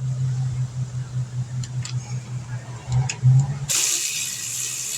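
Power tool running a brake caliper bolt in, switched on abruptly about three-quarters of the way through. Before that, a steady low hum with a few light metallic clicks as the bolt is set by hand.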